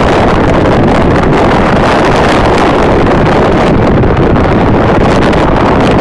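Loud, steady wind buffeting the microphone from a fast-moving Toyota Fortuner driving over desert sand, with the vehicle's running noise underneath.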